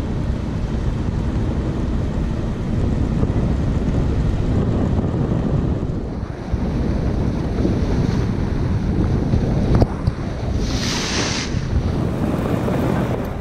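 Wind buffeting a camera microphone held low over the water, with the rush of sea water along a moving sailboat's hull. About eleven seconds in comes a brief louder hiss of spray.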